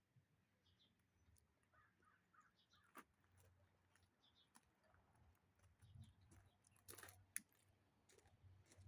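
Near silence: a faint low hum with a few faint sharp clicks and taps, the clearest about three seconds in and near seven seconds.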